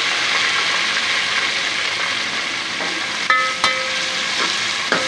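Hot oil sizzling steadily as garlic-ginger paste and green chillies fry with browned onions. A slotted metal spoon stirs and clinks against the metal pot twice a little past three seconds in and once near the end, each clink ringing briefly.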